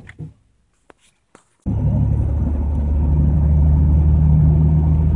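Inside the cabin of a 1989 Jeep Cherokee with the 4.0-litre straight-six, driving at steady speed: a steady low engine drone with road noise. It starts abruptly about a second and a half in, after a near-silent pause broken by a few faint clicks.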